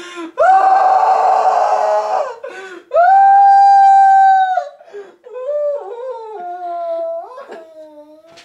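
A young man wailing in exaggerated, drawn-out cries: two long held howls, the second at one steady high pitch, then a wavering cry that falls away and fades.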